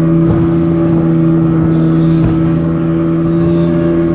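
Speed boat engine running at a steady, even pitch under way.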